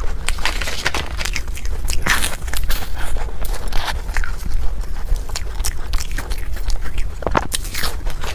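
Close-miked eating sounds: someone biting into and chewing a mouthful of food, with many small wet smacks and clicks coming irregularly.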